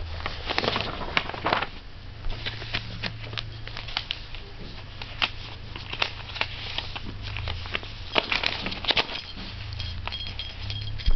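Sheets of paper rustling and crinkling under a cat's paws as it steps and scrabbles on a loose stack, in irregular short crackles.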